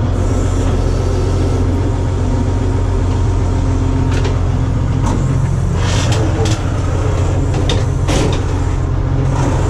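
Bizon combine harvester's diesel engine running steadily, heard from the cab, with short hisses and clicks as the steering wheel is turned. The hiss comes from the hydraulic steering unit (orbitrol), which hisses somewhere in its lines whenever the wheel is turned.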